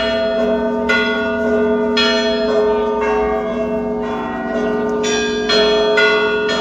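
Russian Orthodox monastery bells ringing: several bells struck over and over in an uneven pattern, each stroke ringing on over the steady hum of the lower bells.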